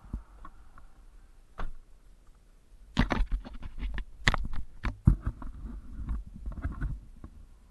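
Handling noise as a person climbs into a pickup truck's cab and settles into the driver's seat: a couple of isolated clicks, then a busy run of rustling, clicks and knocks through the middle, the sharpest knock about two-thirds of the way in.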